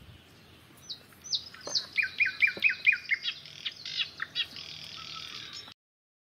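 A songbird singing a rapid run of repeated, quick downward-slurred chirps, which stops abruptly as the sound cuts out near the end.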